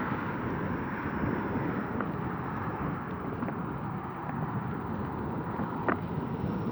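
Wind buffeting a smartphone's built-in microphone, which has no windmuff, during a mountain-bike ride: a steady rushing rumble. A few light clicks come through, with a sharper click near the end.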